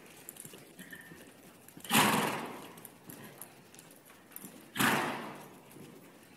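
American Quarter Horse gelding under saddle moving over arena dirt with soft hoofbeats, broken by two loud rushing bursts, about two seconds in and again near five seconds, each fading away over about a second.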